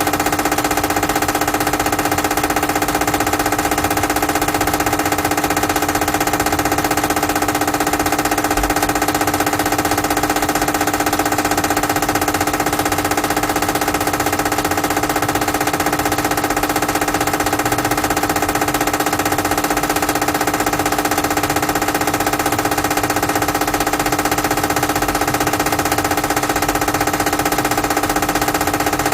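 Air conditioner outdoor unit running with a steady hum of several fixed pitches over a noisy whir, unchanging throughout. This is the unit noise its owner wants to get rid of.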